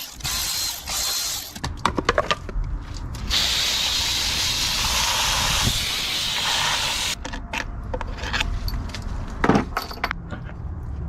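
Workshop handling sounds: sharp clicks and knocks of tools and metal parts, with a steady hiss lasting about four seconds in the middle.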